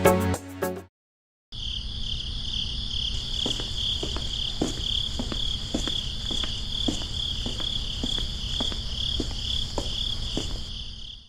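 Crickets trilling steadily in a continuous high, pulsing chorus, with a low hum underneath and faint clicks every half second or so. Music ends about a second in, before a brief silence.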